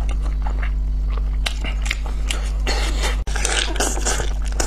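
Close-up wet smacking and chewing of sticky braised pork knuckle skin, with many short clicks of mouth and gloved fingers pulling at the gelatinous skin, densest in the middle. A steady low hum runs underneath.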